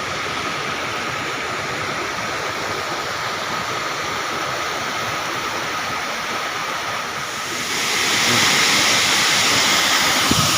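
Waterfall pouring steadily, a continuous wash of falling water that grows louder and brighter about eight seconds in.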